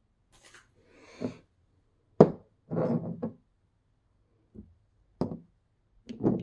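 Glass nail polish bottles being set down one after another on a tabletop: short sharp knocks about two seconds in, at about five seconds and near the end, with some handling and rustling of the packaging in between.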